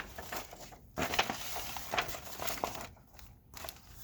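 Paper crinkling and rustling as a plastic model kit's instruction sheet is unfolded and handled, loudest from about a second in.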